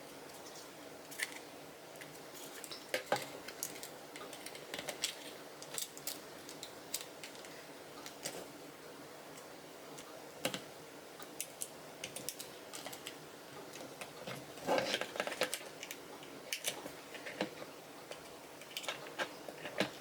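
Irregular light clicks and taps of hard plastic parts being handled and fitted together by hand, with a quick run of clicks about three-quarters of the way through.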